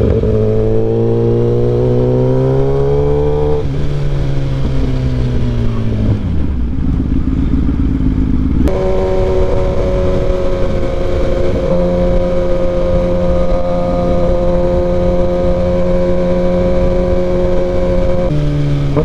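Dyno-tuned Kawasaki sport bike engine pulling up through the revs, with a gear change about three and a half seconds in and a second rising pull, then the throttle rolled off about six seconds in. From about nine seconds in the engine holds a steady cruise over wind and road rush, changing pitch briefly near the end.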